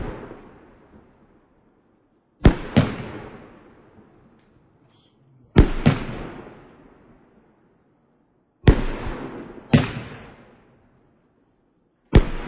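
Fireworks going off: a sharp bang about every three seconds, most followed a fraction of a second later by a second bang, each dying away in a long echo.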